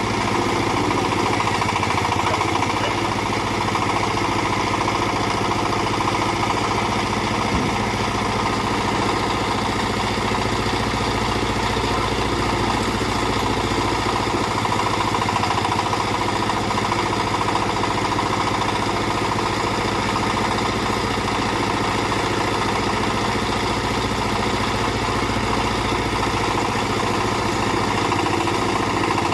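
Small backhoe's engine running steadily at one constant speed, with no revving up or down.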